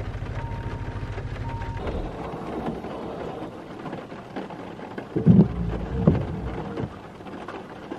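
Level-crossing warning signal sounding in repeated long tones over rain and a low steady rumble. About two seconds in it gives way to rain and a red regional train passing the crossing, with the loudest part, a sound holding a steady pitch, about five seconds in.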